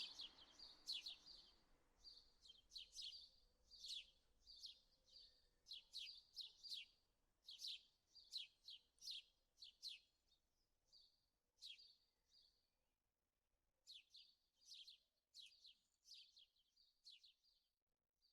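Small birds chirping: faint, short high chirps, several a second in irregular clusters, growing sparser near the end.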